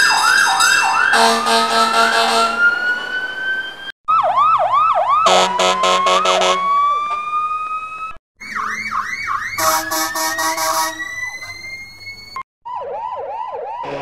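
Electronic police siren sound effect played as a string of short clips cut one after another. Each clip opens with fast repeated yelping sweeps and then settles into a slowly rising wail, with a horn blast over the middle of most clips. Some clips are filtered to sound as if heard inside a bottle or a jar.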